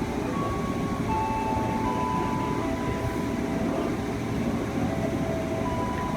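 Electric commuter train running at a station platform: a steady rumble of wheels on rails, with thin whining tones that step between pitches.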